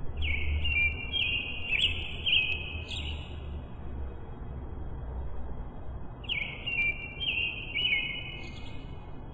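A songbird singing a short phrase of a few clear, slurred whistled notes, then singing it again about six seconds later.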